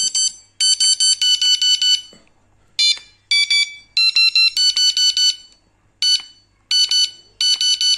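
HIRISI electronic carp bite alarm beeping in bursts of rapid beeps, about seven a second, as its buttons are pressed to test it. The pitch drops in a couple of short bursts about three seconds in, then goes back up.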